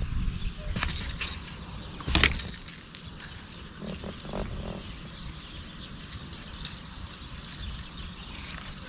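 A spinning rod swishing through the air as it is cast, a few quick swishes with the sharpest about two seconds in, over a low wind rumble on the microphone.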